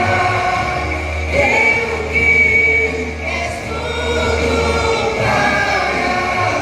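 Vocal group singing a gospel worship song with sustained notes over a steady bass accompaniment.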